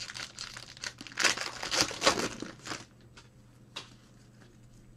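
Wrapper of a trading-card pack crinkling and tearing as it is ripped open by gloved hands, for about three seconds, loudest in the middle, then a few light clicks.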